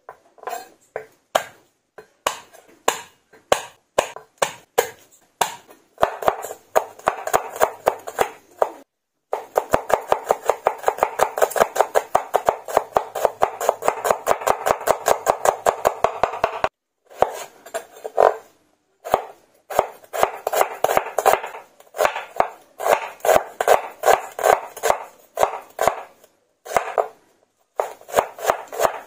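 Knife chopping garlic cloves on a wooden cutting board: a string of sharp knocks, with a fast, even run of chops in the middle. Near the end the knife slices through a red onion onto the board.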